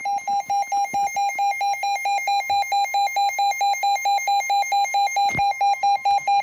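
Weather alert radio sounding its warning alarm for a severe thunderstorm warning: a rapid pulsing beep, about five a second, over a steady alert tone. A click about five seconds in.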